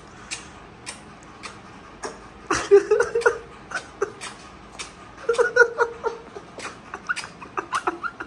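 A toddler's short, high-pitched vocal sounds and giggles come in two bursts, about two and a half seconds in and again around five seconds, while he eats noodles with his fingers. Light clicks sound throughout.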